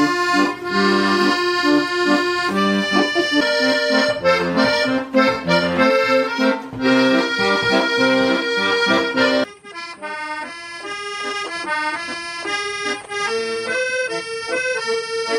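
Instrumental music of held chords, sounding like an accordion. About nine and a half seconds in it drops in level and thins out, and the music carries on.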